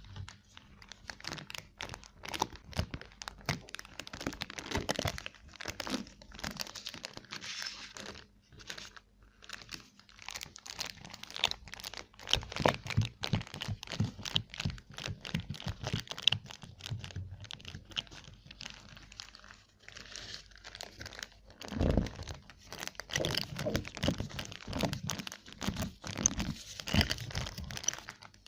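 Close-miked crunching and crackling of chocolate being bitten and chewed, dense and irregular, with a few heavier bites.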